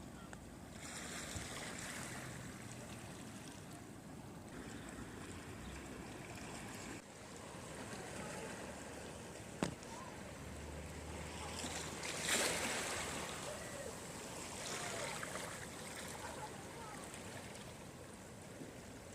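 Sea waves washing over a rocky shore, the surf swelling and ebbing several times and loudest about twelve seconds in. A single sharp click about halfway through.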